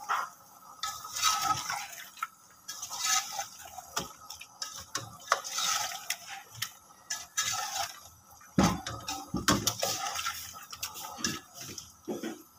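Beef chunks and ground spice paste sizzling in hot oil in an aluminium pot while a slotted spatula stirs and scrapes them, with repeated knocks and clicks of the spatula against the pot.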